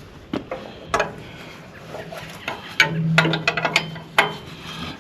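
Hand tools clinking and clicking on the sawmill's steel frame as guide bolts are tightened: scattered sharp knocks, a quick run of clicks about three and a half seconds in, and a low hum under them near the middle.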